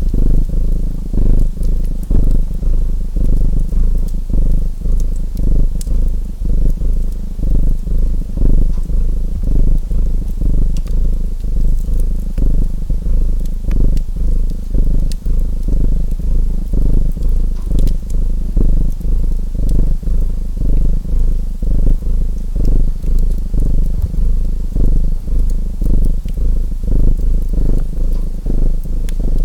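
A domestic cat purring close up, a low rumble that swells and fades in a steady rhythm, over the scattered sharp pops and crackles of a wood fire.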